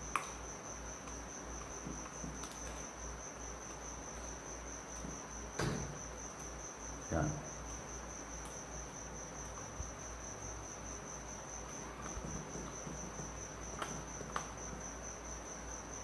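A cricket trilling steadily in a high, even pulse throughout, with a few light clicks and knocks from a screwdriver working the terminal screws of a plastic lamp holder, the loudest about six and seven seconds in.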